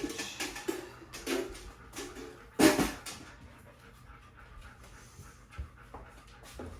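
A dog panting, with a few louder, breathy sounds in the first three seconds and fainter, quick panting after.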